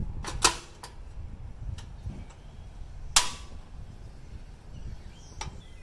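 Coleman portable single-burner stove's piezo igniter clicking as the knob is turned: several sharp separate clicks, the loudest about three seconds in.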